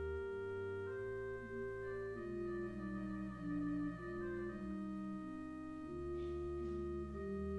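Organ music: slow, held chords changing every second or so.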